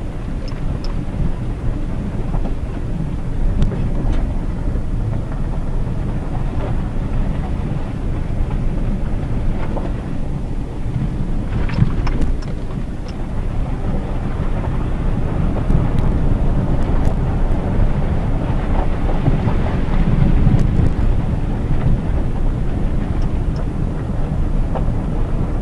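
In-cabin sound of a Hyundai Tucson JM with the 2.0 petrol engine driving on a rough unpaved road: a steady low rumble of engine and tyres, with a few light knocks and rattles scattered through.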